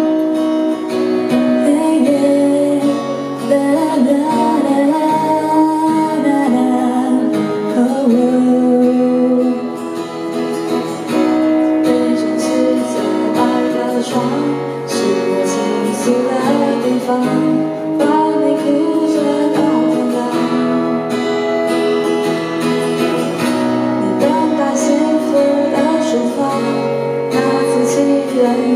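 A song with acoustic guitar and a singer's voice.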